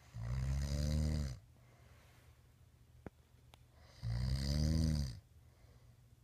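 A man snoring in his sleep: two loud snores about four seconds apart, each lasting just over a second and falling in pitch as it ends.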